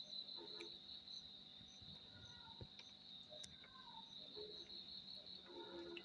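Faint, steady trill of crickets, with a few soft short sounds over it.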